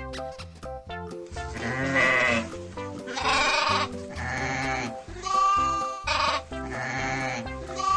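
Sheep bleating over and over, five or six wavering calls of about a second each, starting about a second and a half in, over light children's background music.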